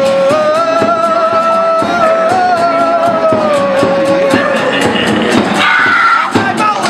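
A band playing live: a man sings one long held note, then a shorter higher one near the end, over strummed acoustic guitar and accordion with a fast, even beat.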